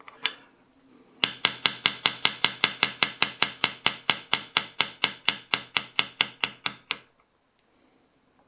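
Rapid, even light hammer taps, about five a second for some six seconds, driving a sight sideways into the dovetail of a 1911 pistol slide. The sight is a tight fit and creeps further in with each series of taps.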